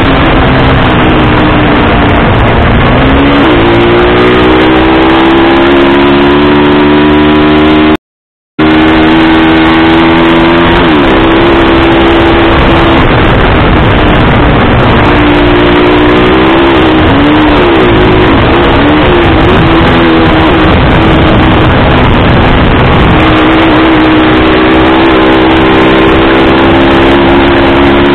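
Motorcycle engine running at speed under a heavy rush of wind on the microphone, its pitch climbing a few seconds in, dipping and wavering in the middle and climbing again near the end as the throttle changes. The sound cuts out completely for about half a second around eight seconds in.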